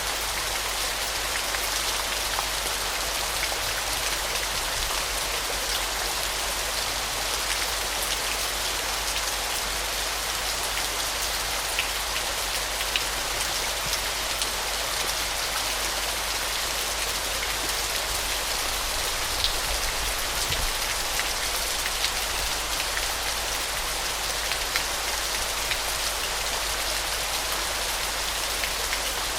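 Waterfall: a steady hiss of falling, splashing water, with small droplet spatters scattered through it.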